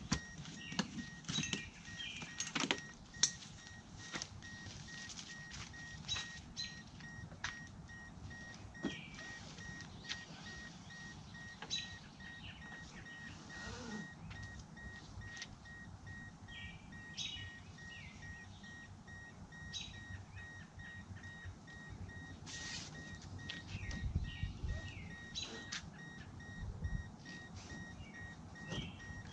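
Kayak tie-down straps and buckles being handled on a car's roof, scattered clicks and rattles with a few knocks, a louder burst of them about 24 seconds in.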